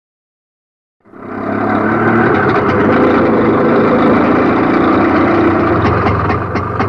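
Auto-rickshaw engine running as it drives up, starting abruptly about a second in. Near the end its sound breaks into a quick, regular putter as it slows toward a stop.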